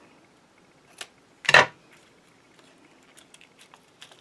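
Tight plastic wrapping on a roll of washi tape being worked open by hand. A sharp click comes about a second in, then a short, louder rustle, then faint small ticks near the end.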